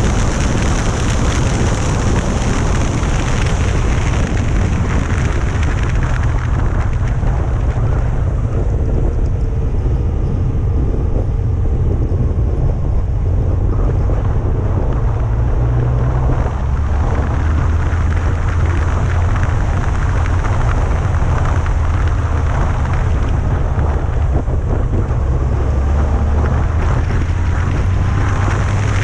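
Wind rushing over the microphone of a motorcycle-mounted camera at riding speed, over the steady low drone of the Yamaha FJR1300's inline-four engine, whose pitch shifts slightly as the revs change.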